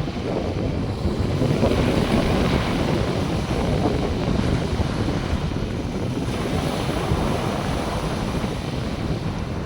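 Sea surf breaking and washing on a beach, with wind rumbling on the microphone. The wash swells about two seconds in and again near seven seconds.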